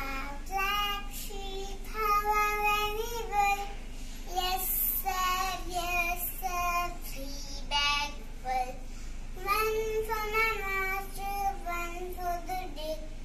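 A young child singing an English nursery rhyme unaccompanied, in short sung phrases with brief pauses between them.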